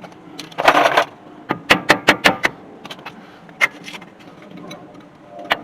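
Hand tools clicking and knocking on a truck's drum-brake parts: a short metallic rattle, then a quick run of about five sharp clicks, and a couple of single clicks later.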